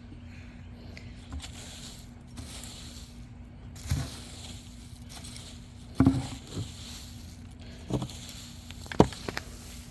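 Dull thuds of digging into garden soil to unearth potatoes, coming every second or two in the second half, with light rustling of dirt and plant stems before them.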